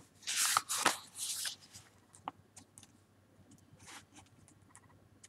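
Paper rustling as sheets are moved and turned over, then a few faint light taps.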